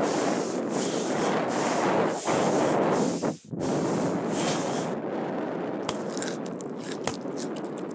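Foley imitation of snow: a continuous swishing rub, as of arms and legs sweeping a snow angel. After a sudden brief break just past the middle it turns to scattered small crunches and crackles, as of snow being scooped and packed into a snowball.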